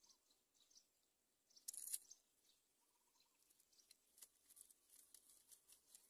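Near silence with faint crackling and rustling of dry nest grass as the parent myna moves at the nest while feeding its chick. The loudest crackle comes briefly about two seconds in, followed by scattered light ticks.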